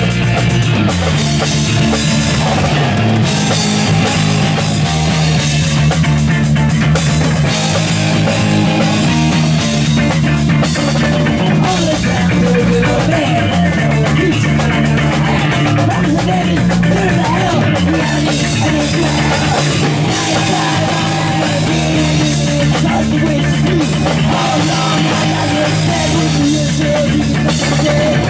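Punk band playing live and loud, with electric guitars, bass guitar and drum kit heard close to the stage.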